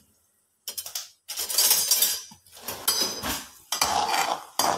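Perforated steel spatula scraping and clinking against a kadhai, stirring peanuts frying in oil. After a brief silence there are several scraping strokes with sharp clicks.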